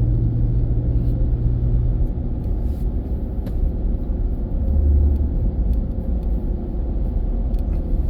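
Pickup truck driving: steady low engine and road rumble. A steady engine note fades out about two seconds in, and the low rumble swells briefly around five seconds in.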